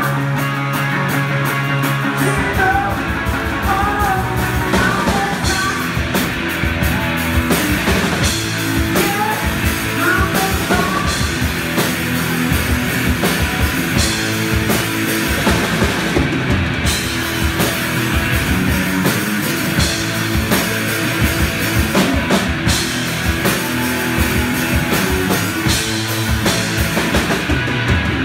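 Live two-piece rock band playing a fast rock song: distorted electric guitar over a drum kit keeping a steady beat, with some singing in the first half.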